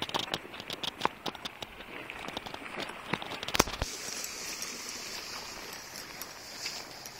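Crackling clicks from steps and handling among dry reed stalks, with one louder knock about three and a half seconds in, then a steady hiss of river water at the bank.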